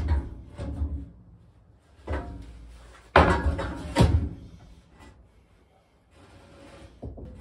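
Heavy metal table-saw top being lowered onto the saw's base: a few knocks as it is manoeuvred, then two loud metallic clanks about three and four seconds in as it seats, followed by lighter scraping as it is shifted into place.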